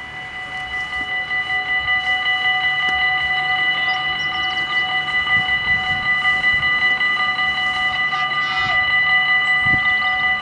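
Dutch AHOB level-crossing warning bells ringing in a rapid, even ding, a set of steady ringing tones. They swell over the first two seconds and then hold: the crossing has activated for an approaching train.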